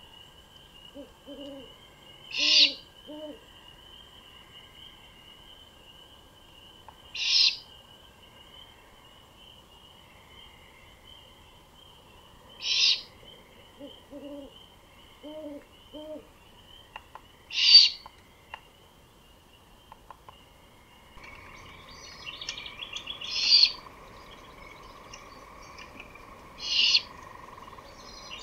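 Great horned owls at the nest: two short series of low hoots, and loud raspy screeches about every five seconds, typical of the owlets begging, over a steady high whine. About two-thirds of the way through, daytime birdsong chirping comes in and the raspy screeches go on.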